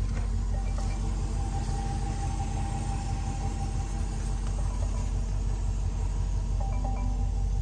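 Steady low rumble of a car, under faint background music with a few held mallet notes.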